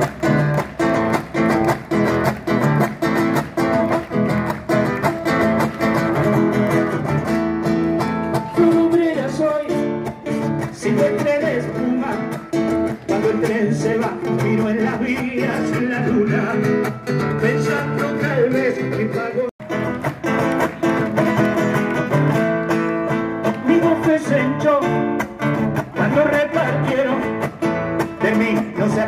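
Live music through PA speakers: a man singing a Spanish-language song with guitar accompaniment. The sound cuts out for an instant about two-thirds of the way through.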